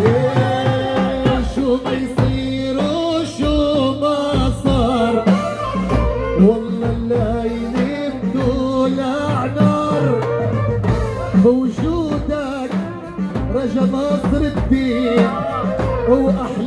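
Live Arabic song: a man singing through a microphone over amplified band music, with a darbuka (goblet drum) beating a steady dance rhythm.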